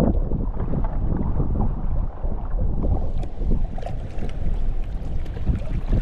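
Strong wind buffeting the microphone in a deep rumble, with choppy waves splashing against a sea kayak's hull and paddle; the splashing gets brighter and more frequent about halfway through.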